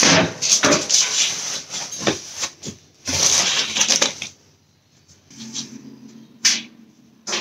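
Plastic and foam packing sheet rustling and crinkling as it is handled and pulled off a folded metal bed frame, stopping about four seconds in; a single sharp knock follows near the end.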